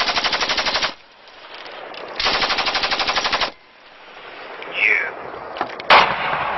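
Vehicle-mounted machine gun firing two long bursts, about ten rounds a second, the first ending about a second in and the second lasting just over a second. A single sharp bang comes near the end.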